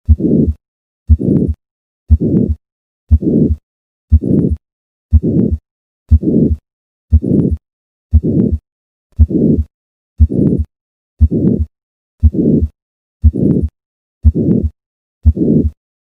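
Stethoscope recording of the heart at the 4th left intercostal space in hypertrophic cardiomyopathy: steady, regular heartbeats, each carrying a harsh systolic murmur.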